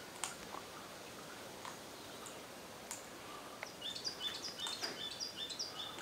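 A bird sings a rapid run of short, clear notes that hop between a few pitches. It starts a little past halfway and lasts about two seconds, over steady outdoor background noise with a couple of sharp clicks earlier on.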